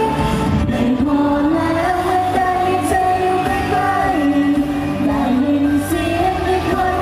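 Thai pop song: a sung melody held in long notes over steady backing music.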